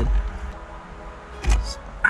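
Faint background music, and about one and a half seconds in a single sharp click as a flathead screwdriver pries at a plastic airbag retaining clip behind a steering wheel.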